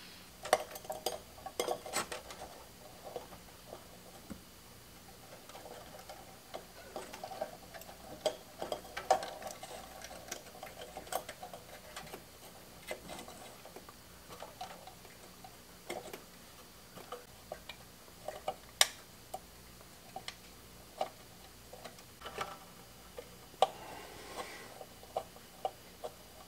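Irregular light clicks and taps of wire leads, solder lugs and a small hand tool being handled inside a vintage tube radio's metal chassis while a coil is refitted, over a faint steady hum.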